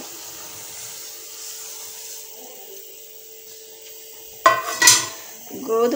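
Boiling water bubbling and hissing in an aluminium pot as broken wheat (godhumai rava) is poured in for upma. About four and a half seconds in, two sharp metallic clanks that ring briefly.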